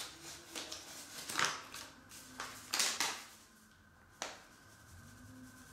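Flour bag rustling and crinkling as it is handled and shaken over the bowl, in several short rustles, with a single sharp click about four seconds in.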